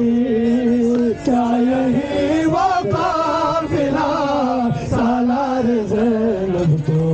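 A man chanting a noha, a Shia mourning lament, into a microphone in long held notes that bend and glide between pitches. Scattered slaps of mourners' hands on their chests (matam) sound behind the voice.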